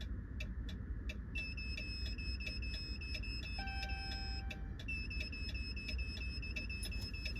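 Rapid high-pitched electronic beeping, several short beeps a second, starting about a second and a half in and pausing briefly around the middle, while a new remote key is being programmed over the OBD port. A faint steady low hum lies underneath.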